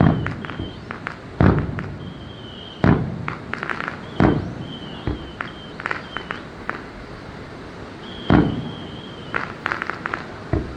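Fireworks display: aerial shells bursting with loud booms every second or two, each followed by clusters of crackling reports, with short high whistles in between.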